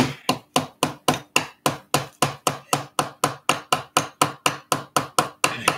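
A claw hammer tapping a small nail into a piece of wood in a steady rhythm of quick taps, about four a second.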